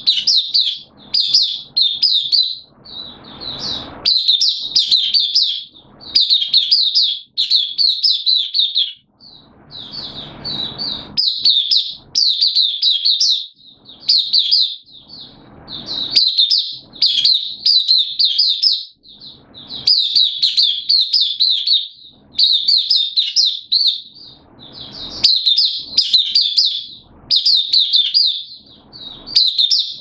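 A caged white-eye singing: rapid, high twittering phrases about a second long, repeated one after another with only brief breaks.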